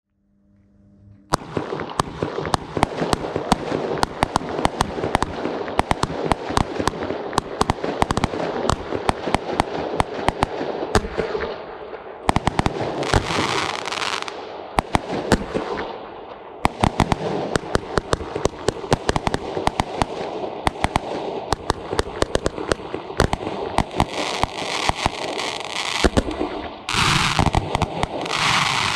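Weco Smasher firework battery firing: a rapid, continuous string of sharp shots and bangs starting about a second in, with crackle between them and several longer rushing stretches, the densest near the end.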